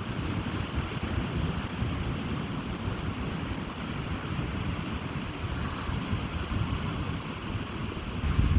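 Ocean surf washing on a beach with steady wind, gusts buffeting the microphone with a low rumble; a louder surge of surf and wind comes right at the end.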